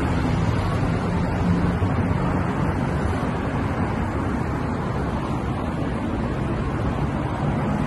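Steady rumble of road traffic, with cars passing on a city street.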